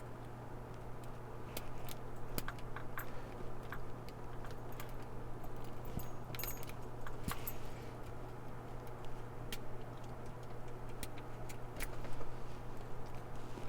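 Lock pick and tension wrench working inside a laminated steel padlock: light metallic clicks and ticks at irregular moments as the pins are probed, one of them hard to set. A steady low hum runs underneath.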